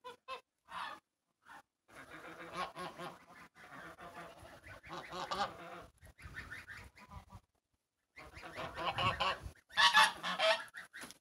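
Domestic white geese honking in long, repeated stretches, with a brief pause about two thirds of the way through. The calling is loudest just before the end.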